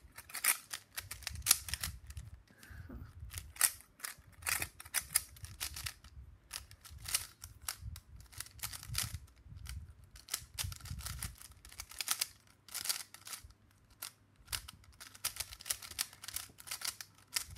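Plastic clicking and clacking of a YuXin Little Magic 3x3 speedcube's layers being turned fast, in quick irregular runs of turns with short pauses.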